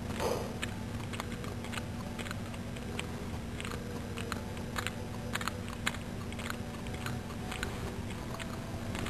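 A cat lapping milk from a saucer: a string of small wet tongue clicks, a few a second and irregular, over a steady low hum.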